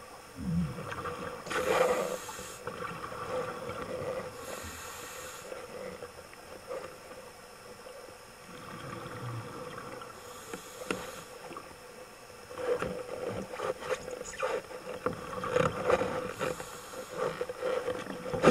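Underwater sound through a diver's camera: a steady hum under repeated hissing and bubbling breaths from a scuba regulator every few seconds, with bursts of crackling bubbles.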